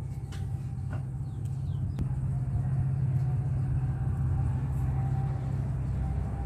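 A steady low engine rumble, getting a little louder after about two seconds.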